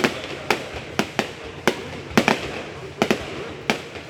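Aerial fireworks bursting overhead: about eight sharp bangs at uneven intervals, with crackling between them.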